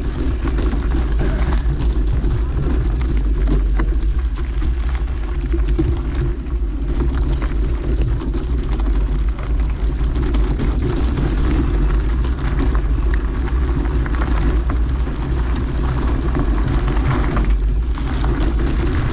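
Wind rumbling steadily on the microphone as a mountain bike rolls down a dirt trail, with tyre noise and frequent small clicks and rattles from the bike over bumps.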